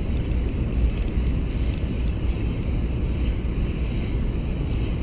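Wind buffeting the microphone, over the steady whir of a Ryobi Smurf 1000 spinning reel being cranked to retrieve a hooked squid, with a few sharp ticks in the first couple of seconds.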